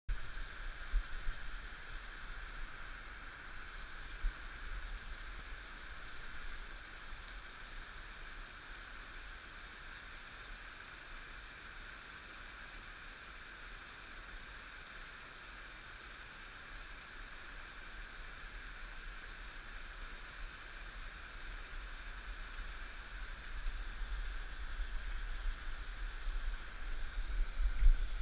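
Steady rushing of a rocky mountain creek running over stones, with irregular low thumps on the microphone that come more often and louder near the end.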